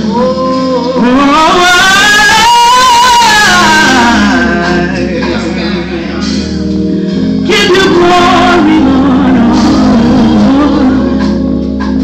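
A woman singing a gospel worship song into a microphone, with long sliding runs and held notes in the first few seconds, over a live band accompaniment.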